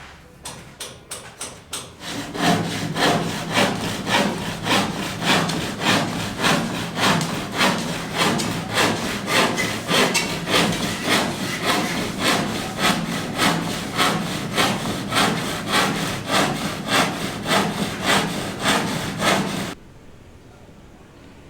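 Hand saw cutting wood in steady back-and-forth strokes, about two a second. Lighter, quicker strokes come at first, and the sawing stops abruptly near the end.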